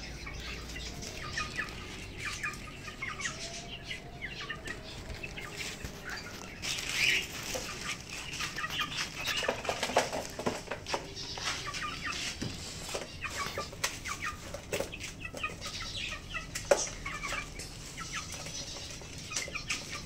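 Hens clucking and flapping their wings as they are let out of their coop, with a few sharp knocks.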